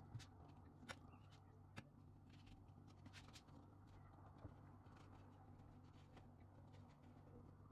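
Near silence: a low steady room hum, with a few faint clicks in the first two seconds and one more later, a metal spoon touching the steel bowl of apple pie filling.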